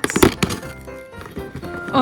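A quick run of sharp clicks and taps in the first half second, with a few more later, as a small advent calendar door is opened and its contents handled, over background music.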